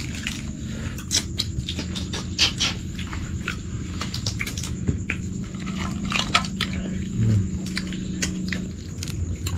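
People eating: irregular crunching and clicking sounds over a steady low hum.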